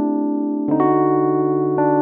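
Background music: slow, sustained chords, with a new chord and a low bass note coming in about a third of the way through.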